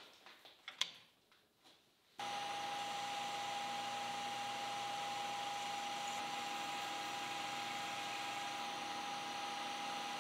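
A few light clicks and knocks from hands working at a four-jaw lathe chuck. Then, about two seconds in, a metal lathe runs steadily with a constant high whine as a carbide insert tool turns the conical tip of a live center.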